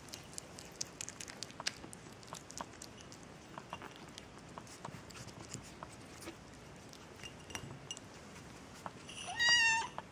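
Six-week-old kitten eating from a small porcelain saucer with faint, scattered clicking chews, then one short, rising meow near the end, the loudest sound.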